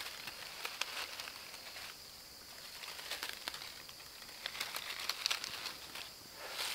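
Dry leaf-and-grass tinder catching fire and being tended by hand: scattered sharp crackles and rustles, denser about five seconds in. A steady high buzz sits behind it.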